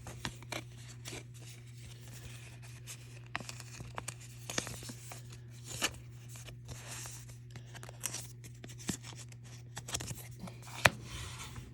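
Trading cards and their packaging being handled: scattered light clicks, taps and soft rustles of card and wrapper, over a steady low hum.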